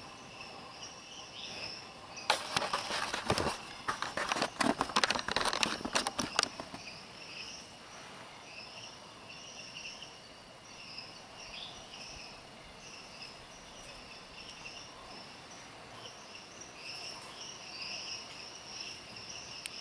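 Night insects chirping steadily in the forest. From about two seconds in, for some four seconds, a louder crackling rustle of leaves and brush.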